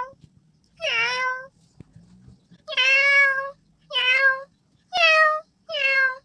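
Five meows in a row, each about half a second to a second long and sliding slightly down in pitch.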